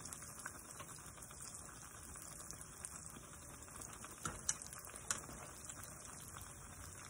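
Fry bread dough deep-frying in hot oil in a skillet: a steady crackling sizzle full of small pops, with a few sharper clicks about four and five seconds in.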